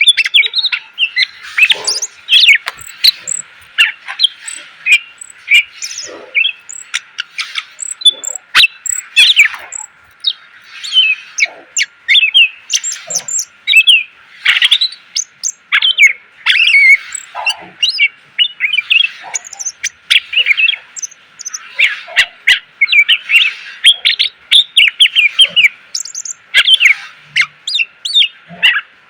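A cucak ijo (green leafbird) singing a loud, continuous stream of rapid, varied chirps and whistled phrases, packed with mimicked notes. Songbird keepers use a full song like this as masteran, to train other birds.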